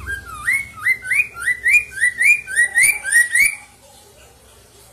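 Caged poksay mandarin, a laughingthrush, singing a fast series of about a dozen loud rising whistled notes, roughly three a second, that stops about three and a half seconds in.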